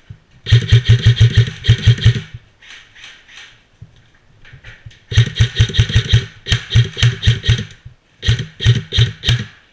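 Airsoft gun firing on full auto in three bursts of about eight shots a second, with a few fainter shots between the bursts.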